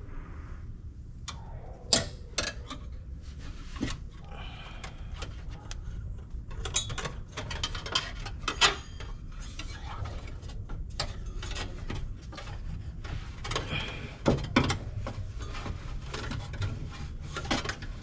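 Irregular metallic clicks, clinks and light knocks of hand tools and wire on the metal handbrake-cable tubes as they are tied back to their bracket, with a few sharper clicks standing out, about 2, 8.5 and 14.5 seconds in.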